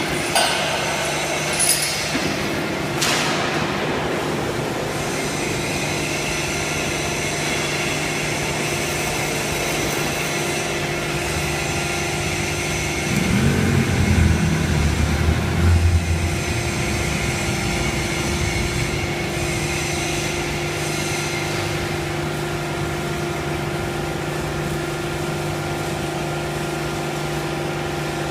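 Paper baling machine running with a steady motor hum. A few short clicks come in the first few seconds, and a louder low rumble lasts about three seconds around the middle.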